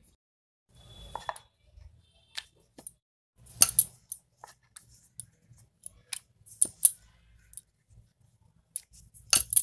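Wooden rolling pin rolling dough thin on a wooden board, giving scattered clicks and knocks of wood on wood. The loudest knocks come about three and a half seconds in and again near the end.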